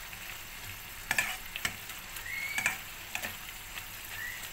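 Vegetables sizzling in a wok while a spatula stirs them, with a few sharp knocks and scrapes of the spatula against the pan.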